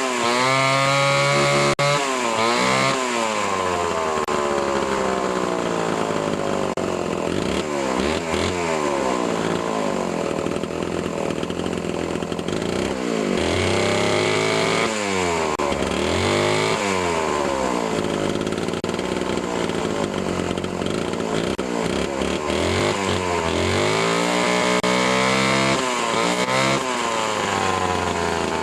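Vintage Homelite C9 two-stroke chainsaw engine running and being revved up and down repeatedly, its pitch rising sharply and falling back several times. It has just been started after long storage and may need a carb kit, in the owner's view.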